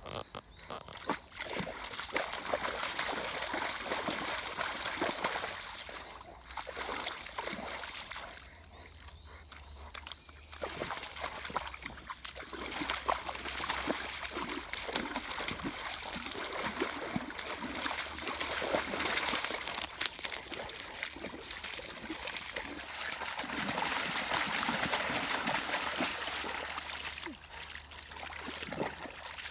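Dog digging and pawing in a shallow muddy puddle: irregular wet splashing and sloshing of muddy water, with a couple of short lulls in the first third.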